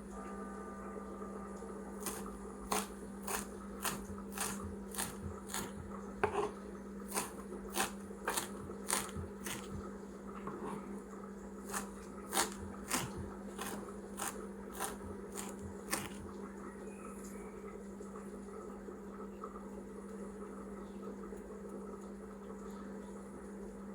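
A knife chopping greens on a cutting board: sharp, irregular chops about two a second that stop about two-thirds of the way through. A steady low hum runs underneath.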